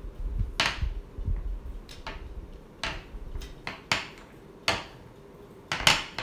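Small roller working cold porcelain paste on a plastic board, a low rumble for the first couple of seconds, then a handful of sharp taps and clicks of hand tools knocked and set down on the board, the loudest near the end.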